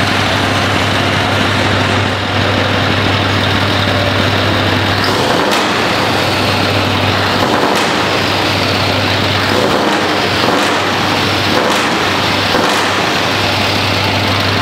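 Scania R560's V8 diesel running through loud straight chrome stacks, a steady deep idle that breaks up into several short revs between about 5 and 13 seconds in.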